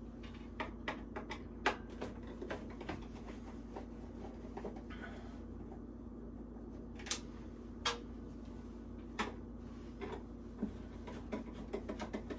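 Scattered light clicks and taps, with a few sharper knocks, from a flathead screwdriver working the screws out of an electrical service panel's metal cover. A steady low hum runs underneath.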